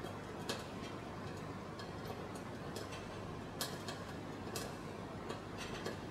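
Wilesco D24 toy steam engine: a steady quiet hiss with light, irregular metallic ticks, about two a second, a few of them sharper than the rest.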